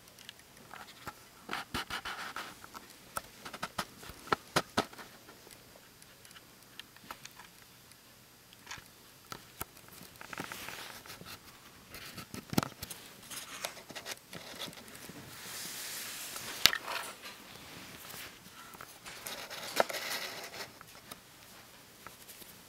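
A Mongolian gerbil scrabbling and nibbling on a paper towel and a hard surface: scattered small clicks, scratches and rustles of paper, coming in irregular spells with short pauses between.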